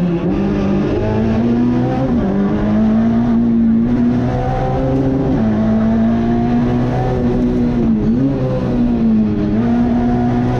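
Citroën C2 R2 rally car's four-cylinder petrol engine running hard at high revs, heard from inside the cabin. Its pitch dips and climbs again several times as the driver lifts and changes gear through the stage's bends.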